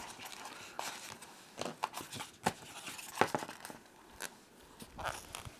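Cardboard model-train box being handled and opened: irregular rustles, scrapes and small knocks of cardboard and packing.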